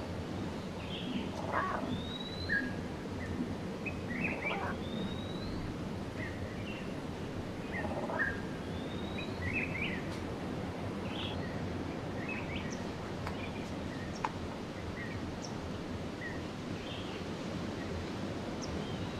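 Birds chirping: scattered short chirps and a few rising whistled notes over steady low outdoor background noise.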